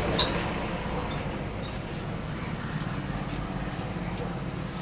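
Street traffic: a motor vehicle engine running steadily, with one short sharp click just after the start.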